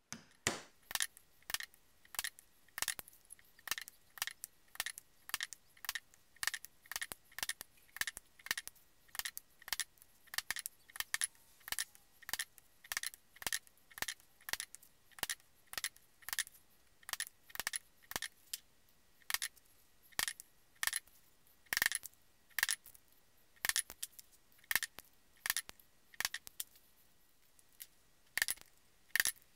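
Mallet striking a single-prong diamond hole punch again and again, driving it through 3 to 5 ounce leather into a wooden stump to make stitching holes. Sharp taps, a little under two a second.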